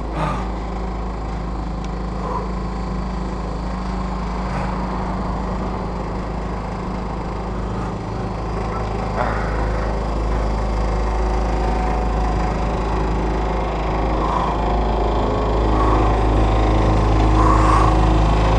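Wind rumbling on a helmet-mounted GoPro's microphone, with a steady low mechanical hum underneath and a few light knocks; the sound grows louder near the end.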